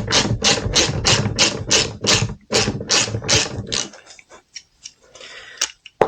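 Socket ratchet wrench being worked back and forth, its pawl clicking in an even rhythm of about three strokes a second; it stops about four seconds in, leaving a few light scattered clicks.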